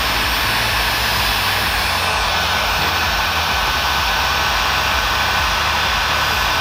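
Hamilton HPC002 electric heat gun running, its fan blowing a steady rush of hot air with a thin high whine, aimed at pre-glued edge banding to melt its heat-activated adhesive.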